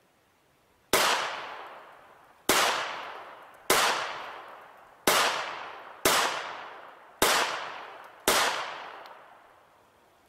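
Argentine Sistema Colt Model 1927 .45 ACP pistol firing seven shots at a slow, steady pace, roughly one a second. Each shot is followed by an echo that dies away.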